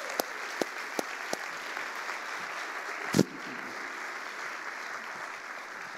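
Audience applauding steadily, with a few louder, closer single claps in the first second and a half and one loud thump about three seconds in.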